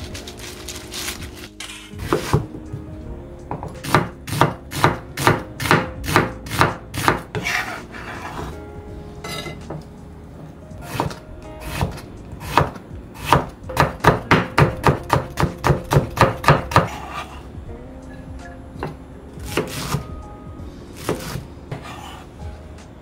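Kitchen knife chopping food on a cutting board in two runs of steady, even strokes, about two to three a second, with a few single cuts near the end.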